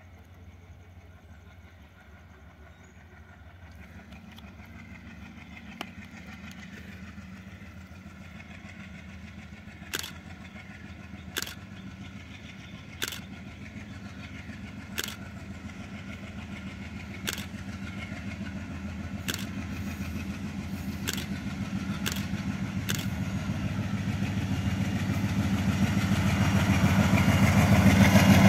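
WDM3D ALCO diesel locomotive approaching, its 16-cylinder engine's low drone growing steadily louder. From about ten seconds in, sharp clicks come every second or two.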